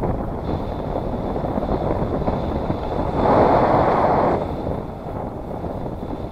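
Wind from a paraglider's airspeed rushing over a GoPro camera's microphone in flight, a steady buffeting that swells louder for about a second past the middle.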